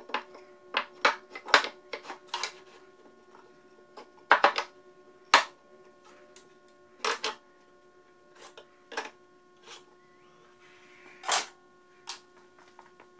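Wooden boards and hand tools being handled and set down on a plywood workbench: scattered sharp knocks and clatters at irregular intervals, over a faint steady hum.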